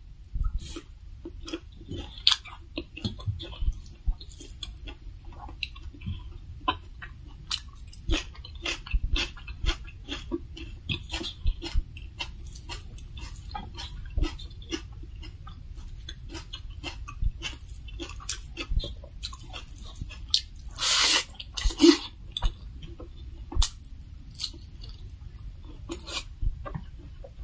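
Close-miked chewing and mouth noises of someone eating rice and fried pork belly by hand, a steady run of small wet clicks and smacks. About three-quarters of the way through there is one louder, longer burst of noise.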